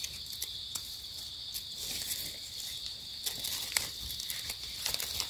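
A steady, high-pitched insect chorus drones throughout. Over it come scattered soft clicks and rustles of dry leaf litter as a small knife cuts a mushroom stem at the base and the mushroom is pulled free.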